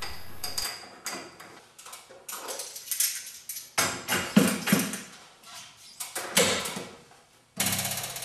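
Irregular metallic clanks, knocks and clicks of tools on garage door spring hardware as the springs are tightened and the cables and pulleys set. Some strikes ring briefly.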